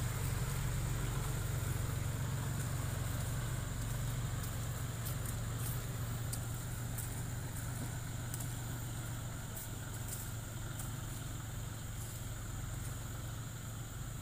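Tractor engine running steadily, a low drone that gradually gets a little quieter.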